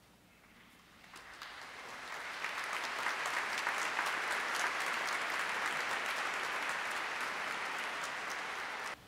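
Congregation applauding: scattered clapping swells over the first two seconds into steady applause, which cuts off suddenly just before the end.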